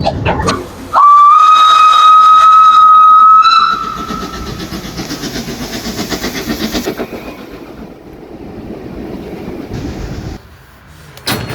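An electric tramcar's whistle gives one long, steady blast of about two and a half seconds, then the tram runs on the rails with a rhythmic clatter of wheels over rail joints that fades near the end.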